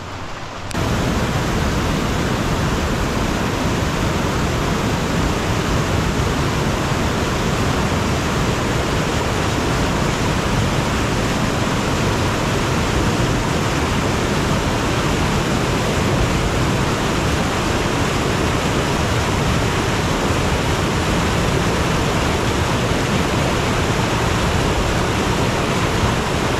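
Shallow river rushing over rocks in a small rapid: a steady, loud rush of water that starts abruptly just under a second in.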